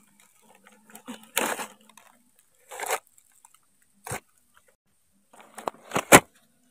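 Palm leaves and cooking gear being handled: separate rustles and crunches, one sharp knock about four seconds in, and a quick run of knocks near the end.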